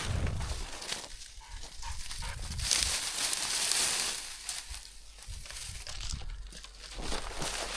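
Footsteps crunching through snow and dry cattails brushing against the walker, a rustling hiss that swells and fades.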